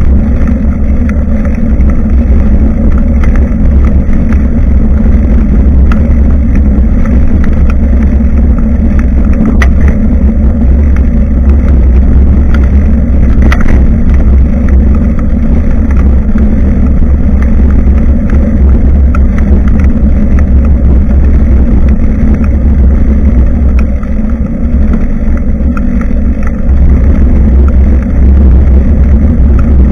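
Heavy, steady wind buffeting and road rumble on a bicycle-mounted action camera's microphone while riding, dipping briefly about three-quarters of the way through.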